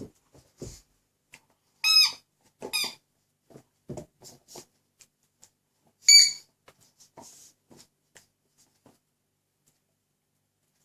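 Rubber squeaky toy pig squeaking as a Dobermann bites it: three short high squeaks, two close together about two seconds in and the loudest about six seconds in, with soft knocks from mouthing the toy between them.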